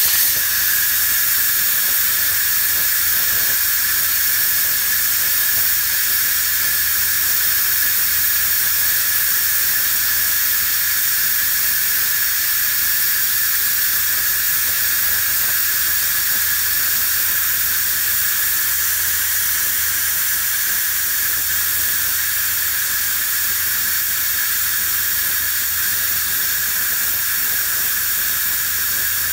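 Instant Pot pressure cooker's steam release valve opened to venting, letting out a loud, steady hiss of steam with a steady high tone running under it: a quick release of the built-up pressure. The hiss starts abruptly and holds level throughout.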